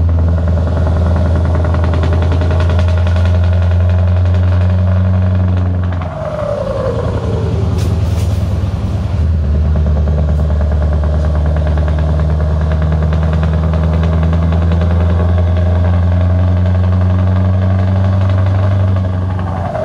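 V8 diesel of a Scania R560 truck tuned to about 800 hp, running hard under load with a steady deep drone, heard from inside the cab. About six seconds in, and again near the end, a falling whine and a brief dip in level come as the power comes off.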